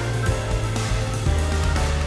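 Background music with a steady bass line and plucked guitar-like notes.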